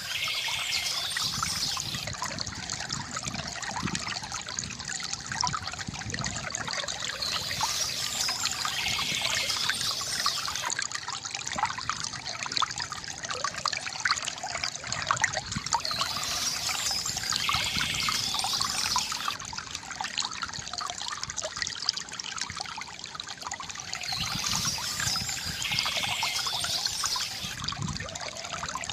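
Water trickling and gurgling steadily from a bamboo fountain. A bird phrase recurs about every eight or nine seconds over the flow.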